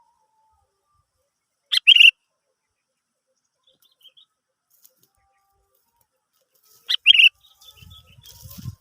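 Sooty-headed bulbul (kutilang) giving two short, sharp call phrases about five seconds apart, each a quick cluster of bright notes.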